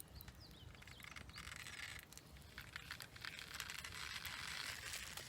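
Faint campfire burning, a soft hiss with scattered small crackles, with a few short bird chirps near the start.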